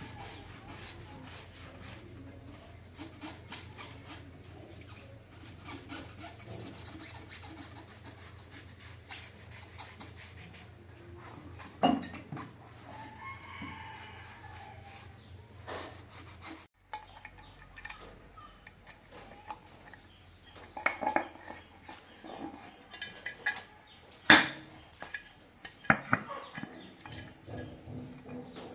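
A cloth rag rubbing and wiping over the rim and tyre of an electric bike's rear wheel, with an occasional sharp knock. About two-thirds of the way in the rubbing gives way to a series of sharp metal clinks and knocks as the rear wheel's hub parts are handled.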